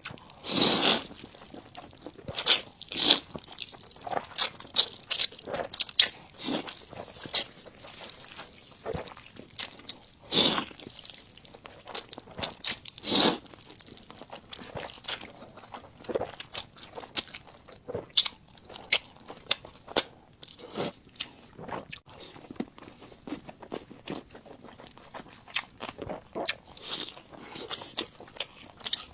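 Close-miked eating sounds of a person chewing Schezwan fried noodles: irregular wet smacks and crunches, a few louder ones about a second in and again around ten and thirteen seconds in.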